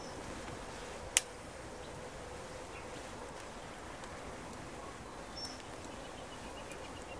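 Small wood campfire of split kindling burning with a faint steady hiss, and one sharp pop from the burning wood about a second in, with a smaller one later.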